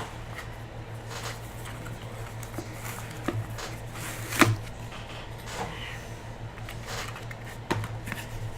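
Trading cards and their packaging being handled: scattered light clicks and rustles, the sharpest about four and a half seconds in, over a steady low hum.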